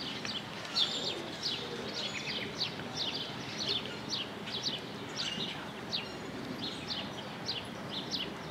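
Small birds chirping: short, high, downward-sliding chirps repeated a few times a second, over a steady outdoor background hiss.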